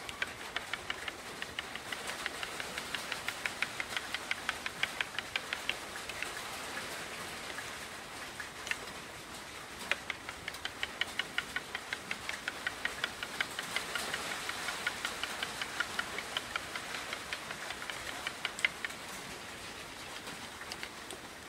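Metal spoon clinking against a ceramic bowl as thick frying batter is beaten, about five quick regular clicks a second in two long runs with a pause of a few seconds between.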